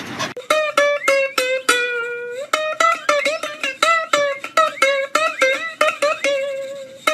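A plucked string instrument playing a quick melody of single notes, several of them sliding up in pitch as they start.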